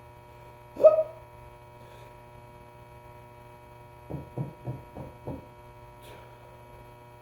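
One loud, sharp hiccup about a second in, from a man trying to stop the hiccups by holding his breath. Around four seconds in comes a quick run of five short, quieter voiced sounds. A steady electrical hum runs underneath.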